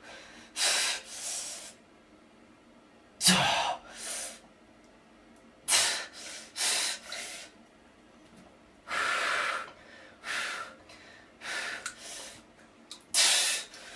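A man breathing hard in sharp gasps and hissed breaths through clenched teeth, about a dozen irregular breaths, while sitting in cold bath water: a shivering reaction to the cold.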